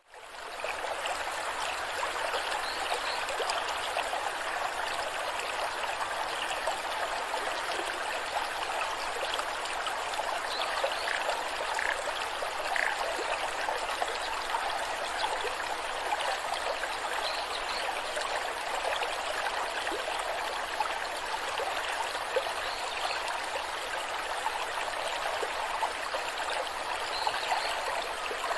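Rushing water of a waterfall cascading, a steady hiss that fades up quickly at the very start.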